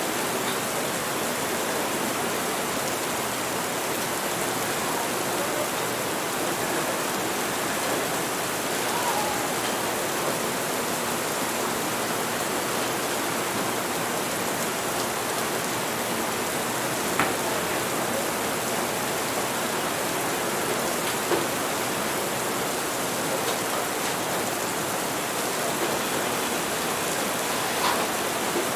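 Steady rain, an even hiss without let-up, with a few sharp clicks, one about two-thirds of the way through, another a few seconds later and one near the end.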